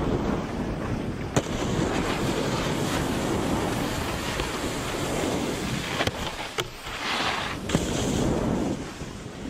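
Wind rushing over the microphone of a camera moving down a ski slope, with the steady hiss of a snowboard sliding on snow. A few sharp clicks come through, and a brighter burst of scraping follows a little past halfway.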